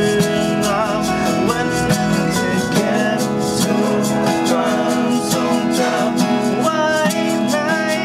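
Acoustic guitars strummed in a steady rhythm under a man's singing voice: an unplugged acoustic ballad.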